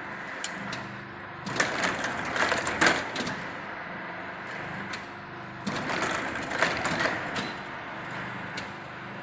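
Chain link fence weaving machine running its automatic selvage edge-locking cycle. A steady motor hum runs under two spells of clattering, clicking mechanism, one about a second and a half in and another near six seconds.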